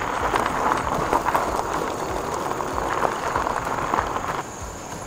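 Dense crackling noise with irregular low thuds, dropping off about four seconds in.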